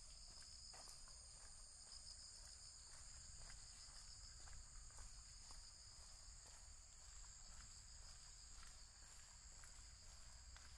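Faint, steady, high-pitched chirring of insects, with a few light clicks scattered through it.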